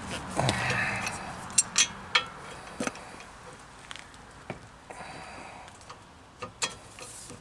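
Sharp metallic clinks from a breaker bar and socket shifting on a rust-seized brake caliper bracket bolt. There are about half a dozen separate clinks spread over several seconds, and the bolt is not breaking loose.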